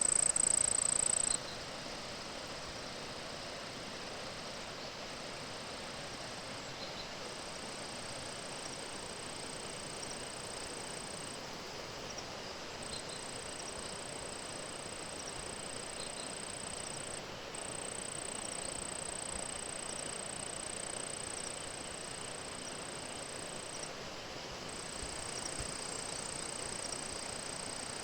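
Insects, crickets or similar, calling in a steady high-pitched trill that stops and starts every few seconds and is loudest in the first second or so, over a steady background hiss.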